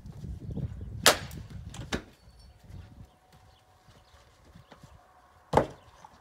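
An axe strikes and splits a firewood round on a chopping block about a second in with a sharp crack, and the split pieces knock down just after. A second sharp wooden knock comes near the end, with wind rumbling on the microphone for the first two seconds.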